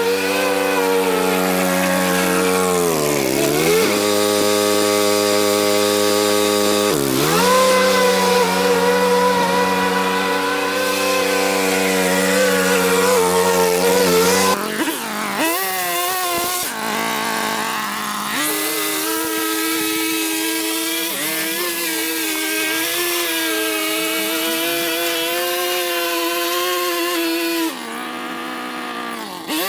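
Small petrol engines of lawn-mowing equipment running at working speed. In the first half the engine note sags sharply twice, as an engine does when it bogs under load in thick, overgrown grass. About halfway the sound changes to a higher, wavering engine note with less low end.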